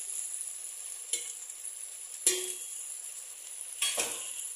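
Onion-tomato masala frying with a steady sizzle in a stainless steel pot. A steel spoon clinks against the pot three times, the loudest a little past two seconds in with a short ring.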